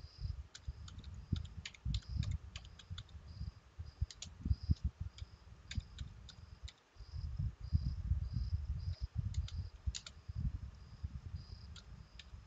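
Computer keyboard typing: irregular, unhurried key clicks with dull low thuds under them as a command is typed.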